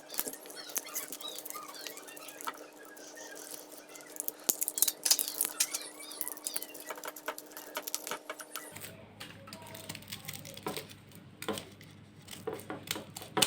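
Irregular small scratching, picking and clicking as a blade cuts and peels the plastic cover off a wire on a UPS transformer winding.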